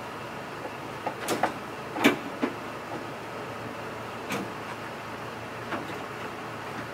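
Several sharp clicks and knocks of hands working on parts at a pickup's exposed frame by the rear wheel, the loudest about two seconds in, over a steady background hum.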